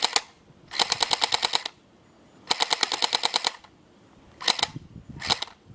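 Electric airsoft M4A1 rifle firing plastic BBs in rapid strings of shots, about a dozen a second: three bursts of about a second each, then two short bursts near the end.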